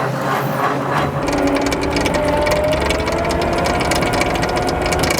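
Crane working: machinery running with a fast, continuous clicking rattle over a steady low hum, starting about a second in, with a whine that rises slowly in pitch.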